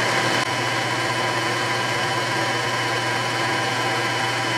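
South Bend 9-inch toolroom lathe running under power, its lead screw turning: a steady electric motor and drive hum with a strong low tone, holding even throughout.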